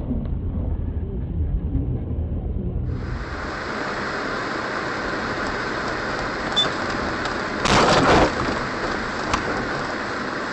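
Noise from a car-mounted dashboard camera's microphone while driving: a low road rumble, then after a cut a steady rushing hiss with a loud, sudden thump just before eight seconds in.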